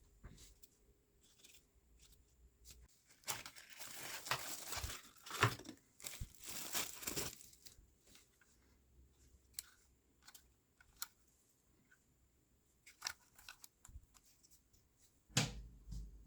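Packaging being torn and crinkled open by hand, in a few noisy rustling bursts, with scattered light clicks and knocks of handling before and after.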